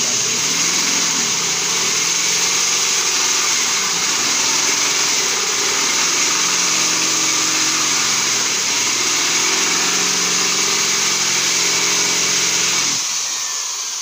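Electric hand drill running under load, its bit boring into the hard, stuck bolt at the centre of a washing machine pulsator. A loud, steady whir whose motor pitch dips and rises as the bit bites, winding down near the end.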